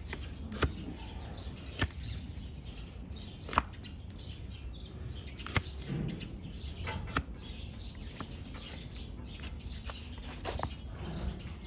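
A broad flat hoof-paring blade shaving slices of horn off a donkey's hoof: a sharp cutting crack every second or two, with lighter scraping in between.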